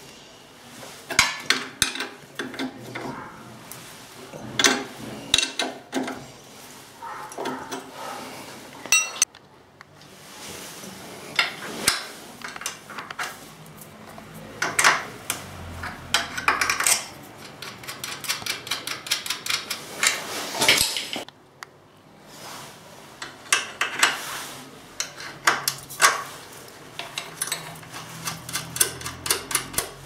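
Steel spanner clinking and ticking on the chain adjuster bolt and lock nut at the rear axle of a Honda CBF125: irregular metallic clicks and knocks, several a second, with brief lulls.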